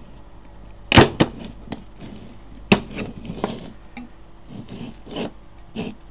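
Sharp snaps and clicks as the battery management circuit board is pried off a pack of 18650 lithium-ion cells, breaking its terminal tabs. Two loud snaps come about a second in and another near three seconds, followed by smaller clicks and rattles of the parts.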